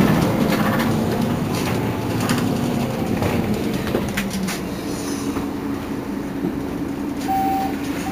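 Mercedes-Benz Citaro Facelift city bus idling at a stop, its diesel engine running steadily with scattered clicks. Near the end a short high beep sounds once.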